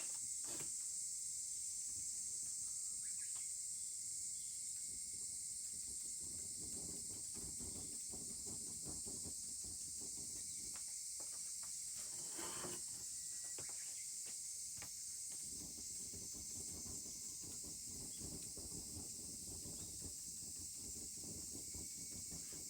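Steady high-pitched chorus of insects, with many small irregular crackles of a wood fire underneath and a brief louder rustle about twelve seconds in.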